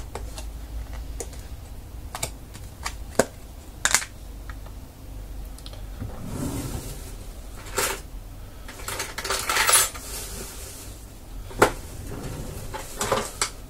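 Hands handling a small plastic deli tub: scattered sharp clicks and knocks of hard plastic, with a few short spells of rustling.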